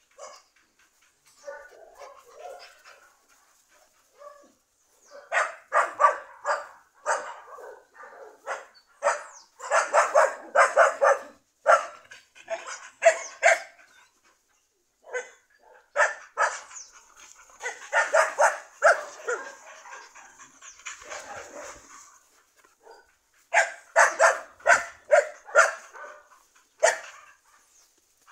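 A dog barking in quick runs of several barks, with short pauses between the runs.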